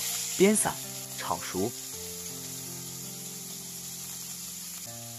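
Minced meat sizzling with a steady hiss as it hits hot oil in a wok. A voice is heard over it in the first two seconds, then background music with long held notes.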